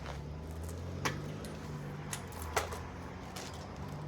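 A few sharp, separate clicks and knocks from bicycle parts and tools being handled, over a low steady hum.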